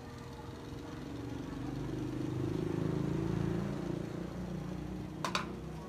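Engine of a passing motor vehicle, a low hum that swells over about two seconds and then fades. Two short sharp clacks come near the end.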